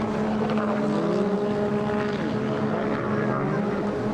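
Several racing jet ski engines running at high revs together, with overlapping whines that slide up and down in pitch as they pass and change throttle.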